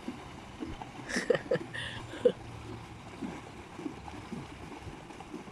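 River water flowing steadily, with a few faint short voices in the background now and then.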